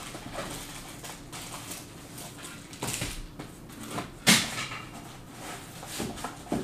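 Trading cards and their plastic holders being handled on a table: scattered rustling and light clicks, with one sharp knock a little after four seconds in.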